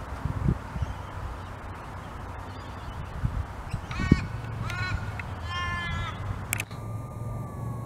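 A crow cawing three times, about four to six seconds in, the last call drawn out longest, over a steady low rumble.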